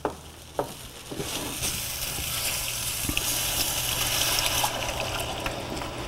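Chicken stock poured slowly from a carton into a hot skillet of flour roux, hissing and sizzling loudly from about a second in until nearly five seconds, then settling to a softer sizzle. This is the liquid being worked into the roux for a béchamel. There are a couple of clicks of the spatula against the pan near the start.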